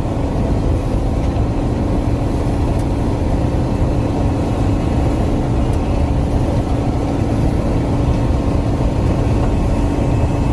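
Combine harvester running steadily while harvesting soybeans: a continuous low drone of engine and threshing machinery with a constant hum.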